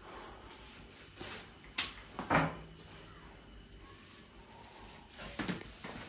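A few short clicks and knocks from plastic parts being handled in a refrigerator's freezer compartment. A sharp click comes a little under two seconds in, the loudest knock just after it, and another knock comes near the end.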